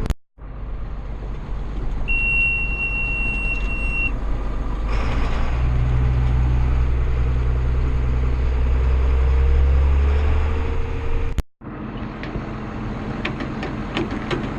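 Farm tractor engine running under way, towing a round baler, with a steady low rumble that gets heavier for several seconds in the middle. A steady high beep sounds for about two seconds near the start, and light rattling clicks come in near the end.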